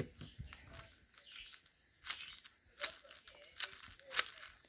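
X-Man Shadow V2 M magnetic 6x6 speed cube being turned by hand, its plastic layers clacking into place as they are pushed through misaligned turns to test corner cutting. The clacks are light at first, then four sharper ones come evenly spaced in the second half.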